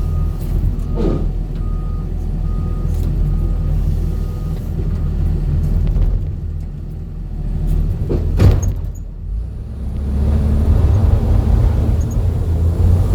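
Low, steady rumble of a road vehicle running, with a few knocks and rattles, most noticeably about eight seconds in.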